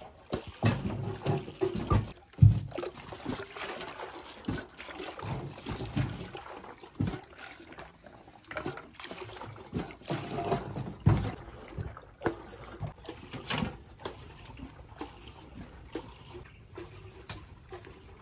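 Irregular knocks and clatter of wood against a sheet-metal wood stove as a stick stirs the fire. The loudest thumps come about two seconds in and again around eleven seconds, then only scattered lighter ticks.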